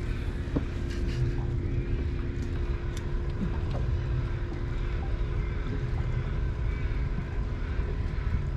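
Boat motor running steadily: a constant hum over a low rumble.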